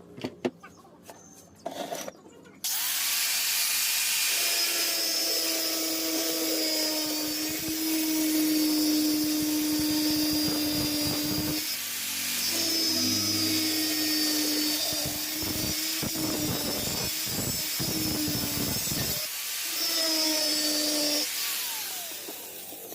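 An electric power tool starts abruptly after a few light knocks and runs steadily with a hum and a hiss. It cuts out briefly twice and stops shortly before the end.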